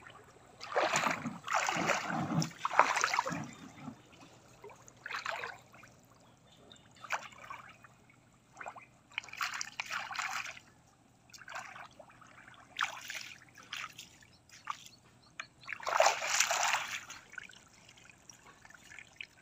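Shallow river water splashing and trickling as hands scoop it and wash mud off legs, in irregular bursts. The biggest splashes come in the first few seconds and again near the end.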